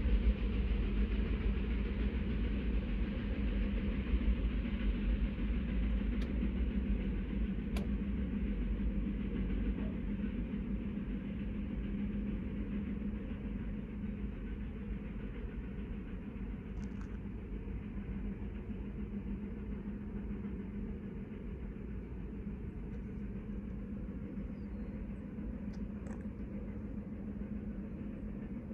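Rumble of a departing Union Pacific manifest freight train, a steady low noise that slowly dies away as the train recedes.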